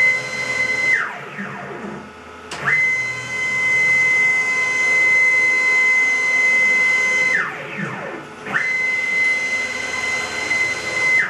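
Stepper motors of a homemade CNC router whining as the gantry makes rapid moves along the Y axis at 300 inches per minute. Each move is a steady high whine that sweeps up in pitch as it speeds up and down as it slows: one move ends about a second in, then a long move of about five seconds and a shorter one of about two and a half seconds follow.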